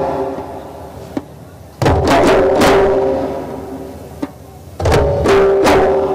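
Ensemble of djembe drums struck together, three strokes at a time, the groups repeating about every three seconds. Each group rings on and fades away before the next.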